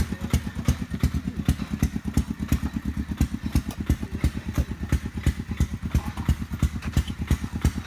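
Motorcycle engine idling steadily, a fast even thudding of about seven or eight beats a second.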